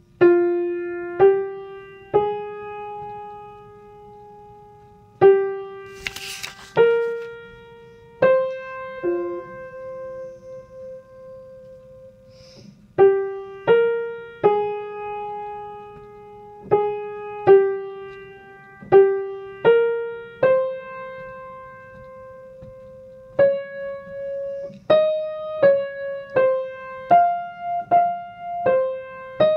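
Piano playing the soprano line of a choral piece as a slow single-note melody, one struck note at a time, some held for several seconds, the notes coming quicker near the end. A brief hiss sounds about six seconds in.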